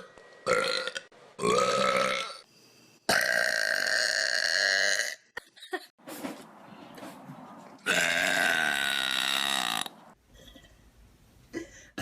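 A person burping loudly several times: one short burp, then three long, drawn-out burps of one to two seconds each.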